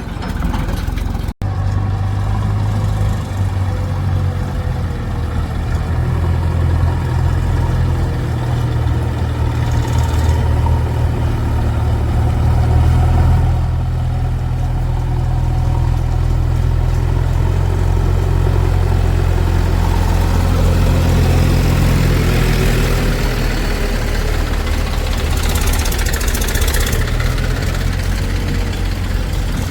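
Diesel engine of heavy machinery running steadily with a deep, even drone, with a brief cut-out about a second in and a louder hiss near the end.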